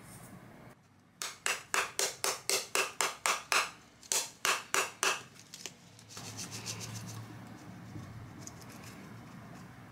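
A plastic sugar shaker is shaken hard, about four rasping strokes a second for over four seconds, with caked, hardened sugar rattling inside. Then come softer, quicker shakes as a little sugar comes out onto a wooden spoon.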